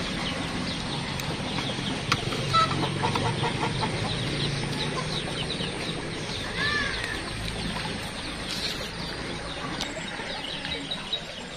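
Chickens clucking in the background, with one clear call about six and a half seconds in, and scattered small bird chirps.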